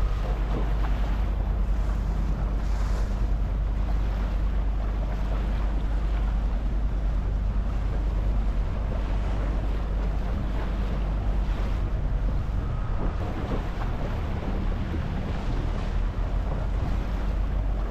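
Steady wind rumble on the microphone, with sea water splashing and washing around a small tour boat.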